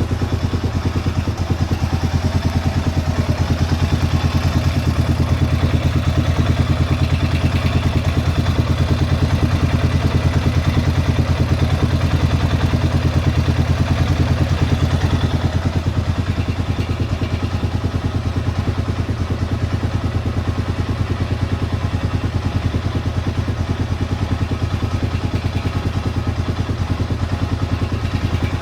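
Honda Rubicon ATV's single-cylinder engine idling steadily with a ticking clatter from the valve rocker arms, which the owner says all these Hondas make when cold and which mellows out as the engine warms.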